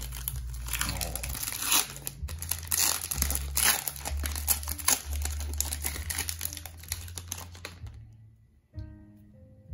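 A foil trading-card pack being torn open and crinkled by hand; the crinkling stops about eight seconds in. Background music with a low bass line plays underneath.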